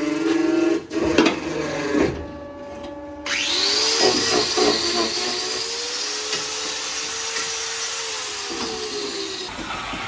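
Angle grinder with a hoof-trimming disc starting up about a third of the way in with a rising whine, then running steadily as it grinds a cow's hoof. Before it, a short hum and a few knocks.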